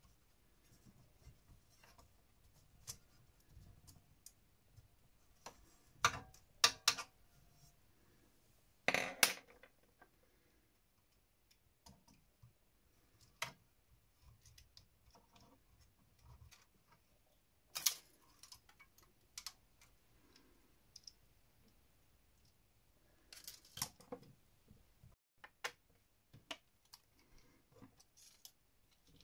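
Scattered clicks, snaps and short knocks of metal and plastic parts being handled as the optical pickup assembly of a Pioneer CLD-2950 LaserDisc player is worked free from its rail, with the loudest and longest about nine seconds in.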